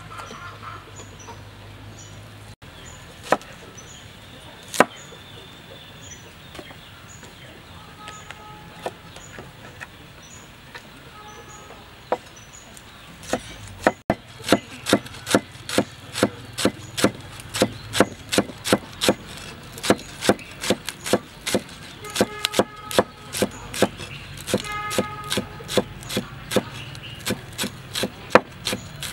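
Cleaver chopping green onions on a wooden cutting board. There are a few single knocks in the first half, then steady, fast chopping at about two or three strikes a second from about halfway through.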